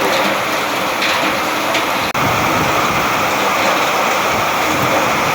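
Heavy, steady rain falling, an even hiss that cuts out for an instant about two seconds in.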